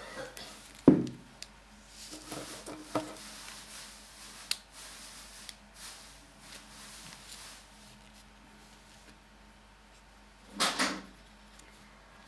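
Origami paper handled and creased by fingers on a wooden tabletop, with a sharp knock about a second in and a few lighter taps after it. A short, louder double scrape or rustle comes near the end.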